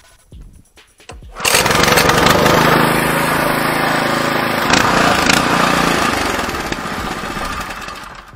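Walk-behind tractor's single-cylinder petrol engine starting: it catches suddenly about a second and a half in and runs loudly, easing off near the end.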